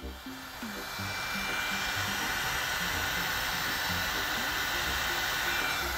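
Electric heat gun blowing hot air onto a nitro RC engine, rising about a second in and then running steadily with a faint high whine.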